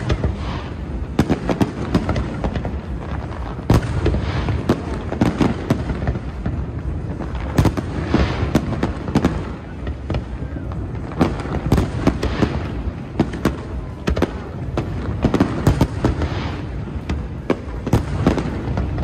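Aerial fireworks display going off: a dense, continuous run of sharp bangs following close on one another over a steady low rumble.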